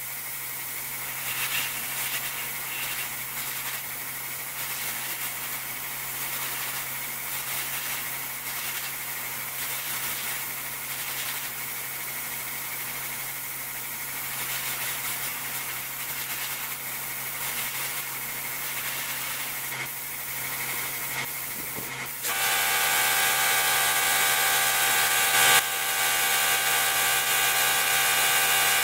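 Gravity-feed spray gun hissing with compressed air in repeated bursts while a wet coat of clear coat goes on. About two-thirds of the way through, a louder motor starts up and runs with a steady whine.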